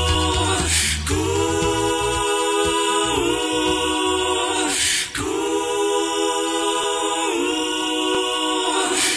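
Soundtrack music: unaccompanied voices singing held chords that shift together every couple of seconds, with a low bass part in the first two seconds.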